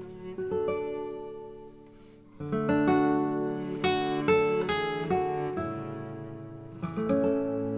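Background music of plucked and strummed acoustic guitar. It fades about two seconds in, then comes back louder.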